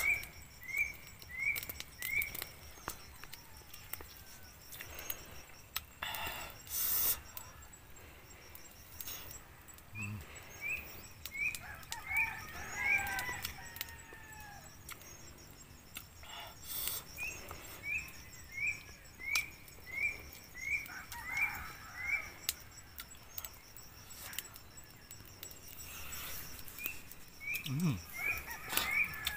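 A bird repeating a short rising chirp about twice a second, in runs of several seconds, with other gliding bird calls between them. A few sharp clicks and knocks stand out now and then.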